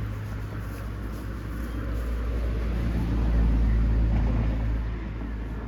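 Low engine rumble of a passing motor vehicle, swelling a little past halfway through and then fading.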